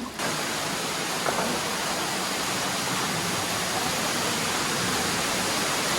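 Waterfall rushing: a steady, unbroken roar of falling water that cuts in abruptly just after the start.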